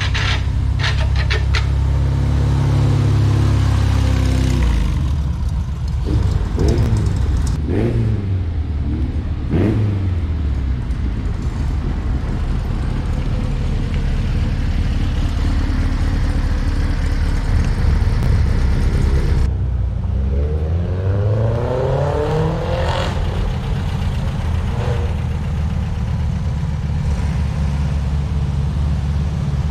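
Classic Volkswagen Beetles' air-cooled flat-four engines running as the cars drive past one after another. The engine pitch drops several times as cars go by, and rises again about two-thirds of the way through as one accelerates.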